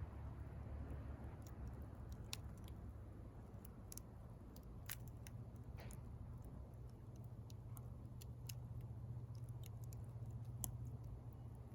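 Wood bonfire crackling, with scattered sharp snaps and pops at irregular intervals.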